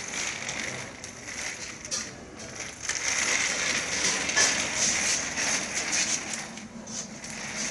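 A plastic baby walker rolling over a hard floor, its wheels and frame rattling continuously, louder from about three seconds in.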